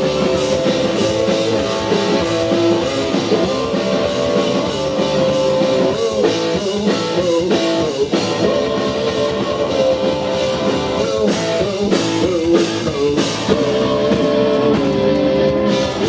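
Rock band playing live, loud: electric guitar over a drum kit, instrumental with no singing.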